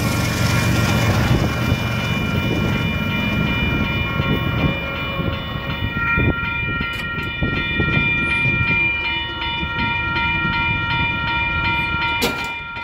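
Union Pacific freight train rolling past with a steady low rumble and rail noise, while a grade-crossing warning bell rings steadily, about two strikes a second. A sharp knock comes near the end as the train noise fades.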